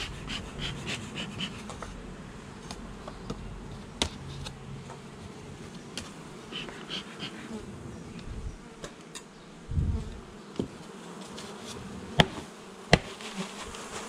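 Honeybees buzzing around an opened hive, a steady hum, with a few sharp knocks and one dull thump about ten seconds in.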